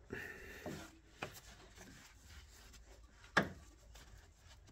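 Gloved hand rubbing and pushing wiring into place against the car's rear suspension, with scraping near the start and two sharp clicks, the louder one about three and a half seconds in.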